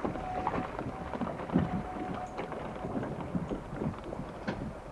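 Wind buffeting the microphone over water rushing and splashing along a sailing dinghy's hull, with a thin steady tone that stops about two seconds in.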